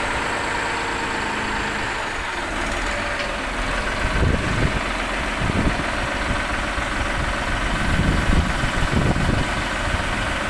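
Massey Ferguson 9500 tractor's diesel engine running steadily at low speed, with a few louder low rumbles midway and near the end.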